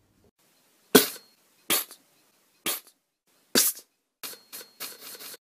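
A string of fart noises: four loud short bursts about a second apart, then a quicker run of six smaller ones near the end.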